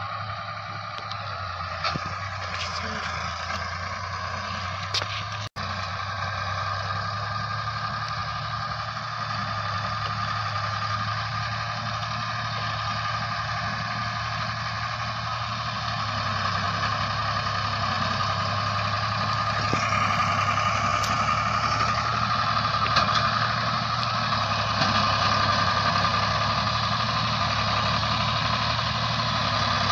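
Ford 4610 tractor's three-cylinder diesel engine running steadily as it tows a heavily overloaded trolley, growing louder from about halfway through as it draws closer.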